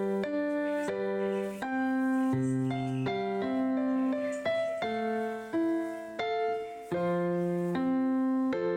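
Instrumental background music: a piano-like keyboard playing a slow melody over held chords, the notes changing about every half second to a second, with no drums.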